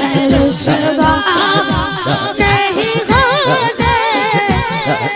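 A young boy singing a naat (devotional Urdu/Punjabi kalam) into a microphone, his melody bending and wavering through ornamented phrases.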